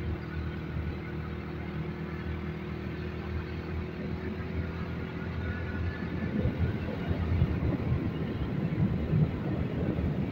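Motorcycle engine running at a steady cruising speed. About halfway through, a louder, rougher low rumble builds up over it.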